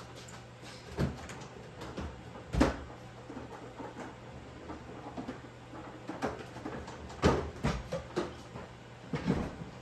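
Kitchen handling sounds: a series of separate knocks and clicks of dishes, utensils and cupboard or fridge doors, two of them louder than the rest, over a low steady hum.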